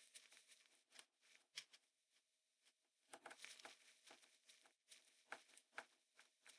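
Faint, irregular scratching and clicking of a pointed metal pick scraping in the screw holes of a vintage clipper motor's metal end cap. The scraping is busier from about halfway through.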